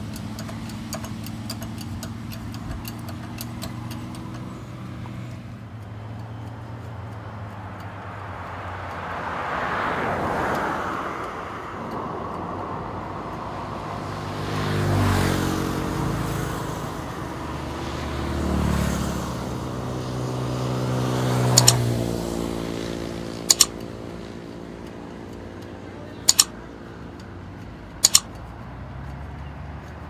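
Engine of a small tracked crawler running, revving up and falling back three times, with four sharp metal clanks in the last third from the thrown track being worked on.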